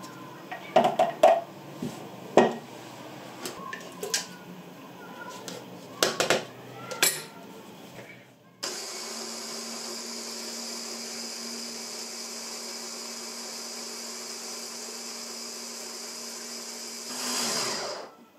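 Plastic clicks and knocks as a hand blender's chopper attachment is fitted together. About eight and a half seconds in, the blender motor starts and runs steadily for about nine seconds, chopping peeled tomatoes into a paste. Near the end it grows louder for a moment and then cuts off.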